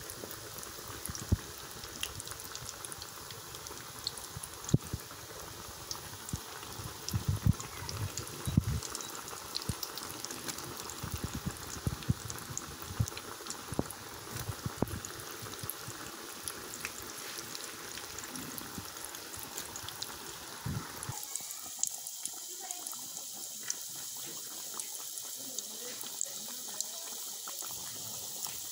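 Pieces of dough deep-frying in hot oil in a metal pot: a steady sizzle full of small pops and crackles, with a few soft knocks early on as more dough goes in. About three quarters of the way through the sound changes abruptly, losing its low part so the sizzle turns higher and thinner.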